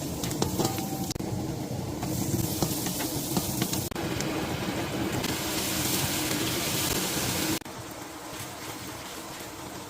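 Food sizzling in a cooking pot over a steady low hum. The hiss changes abruptly several times and drops noticeably near the end.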